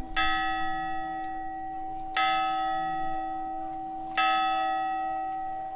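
A single church bell tolling, struck three times about two seconds apart at the same pitch, each stroke ringing on and slowly dying away until the next.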